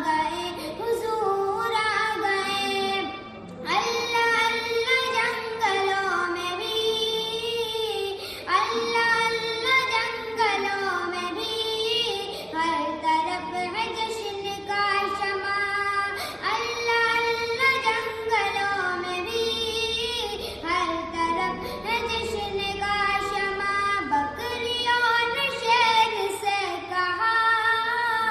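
A naat, an Islamic devotional song, sung by a high voice in long melodic phrases, with a brief pause between phrases about three seconds in.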